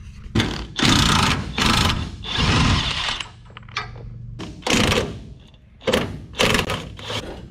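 Steel rear bumper being worked loose and pulled straight off the truck frame: a run of irregular metal scraping and clanking.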